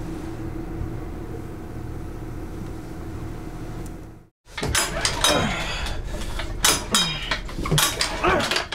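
A steady hum, then after a brief break a run of clanks, knocks and rattles from working a small portable generator engine, likely pulling its starter cord, which does not start.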